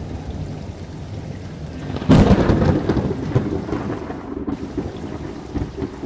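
Thunderstorm effect: a steady low rumble under a rain-like hiss, then a sudden loud thunderclap about two seconds in that rolls away over the next few seconds.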